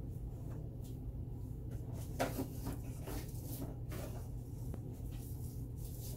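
Rummaging sounds of a heat gun being fetched from storage: scattered knocks and clicks like a cupboard or drawer being handled, loudest a little over two seconds in, over a steady low hum.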